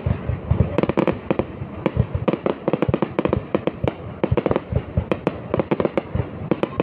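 Fireworks barrage going off: a rapid, irregular string of bangs, several a second, as shells launch from the ground and burst in the air.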